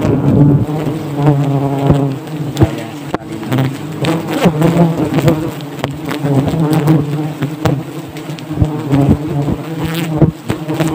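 A dense swarm of honeybees buzzing loudly right at an open hanging comb, a steady drone whose pitch wavers. Scattered sharp clicks and knocks cut through it.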